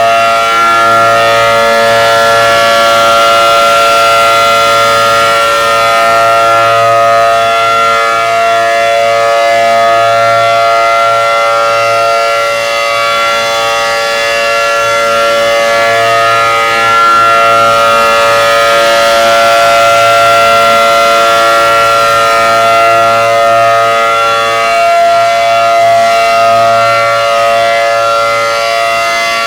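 ACA Allertor 125 outdoor warning siren sounding its steady Alert signal: a loud, unwavering chord of tones that swells and fades slightly in loudness as the siren turns.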